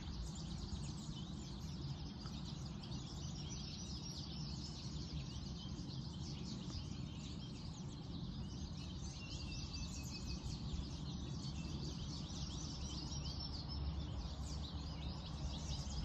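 A flock of small songbirds chirping without a break, many short high calls overlapping, which the recordist takes for yellow finches. A steady low rumble of outdoor noise runs underneath.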